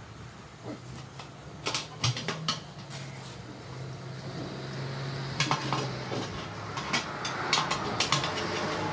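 Steel tyre irons clinking against a metal wheel rim as a wide tyre is levered on by hand. The sharp metallic clinks come in several quick clusters.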